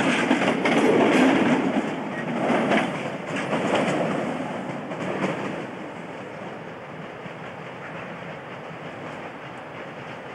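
Wheels of a rake of InterCity Mark 3 passenger coaches clattering over pointwork as the train passes and draws away, the rhythmic clicks fading out over the first six seconds into a low steady rumble.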